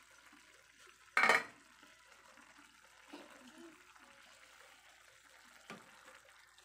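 A pan of litob clams in oyster sauce simmering with a faint steady bubbling hiss. About a second in there is one short, loud clatter of stirring against the pan and shells.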